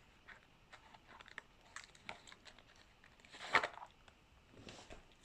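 Small clicks and rustles of a vintage film camera being handled, with one louder scraping rustle about three and a half seconds in.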